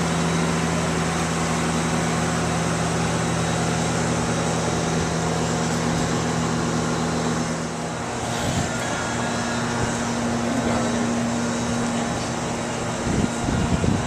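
Amusement arcade din: game machines' steady held electronic tones and hum over a general wash of noise. One low tone stops about halfway through, another near the end, and there are a few louder bumps near the end.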